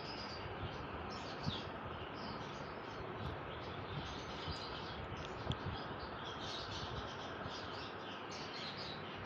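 Pet parrots chirping in many short, high calls over a steady background hiss.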